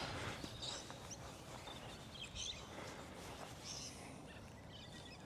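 Faint outdoor ambience with a few distant bird chirps now and then.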